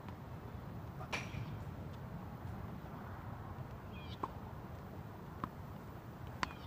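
Tennis ball rally: a few short, sharp pops of the ball bouncing on the hard court and being struck by rackets, the loudest near the end as the near player hits a forehand. Small birds chirp briefly in between.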